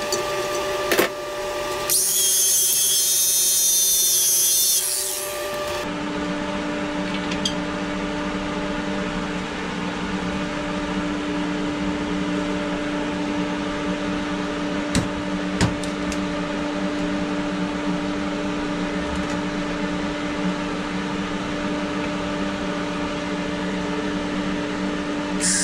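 Steady electrical hum of a running inverter welder and its cooling fan, with a few clicks at the start and a loud hiss lasting about three seconds near the start.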